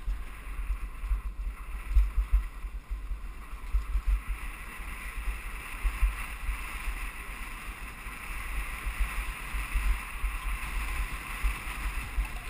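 Wind buffeting the microphone of a helmet-mounted camera on a downhill bike rolling fast over cobblestones: an irregular, thumping low rumble under a steady hiss.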